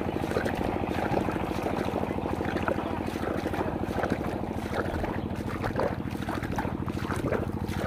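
A small engine running steadily at a constant speed, a low drone with a fast, even pulse.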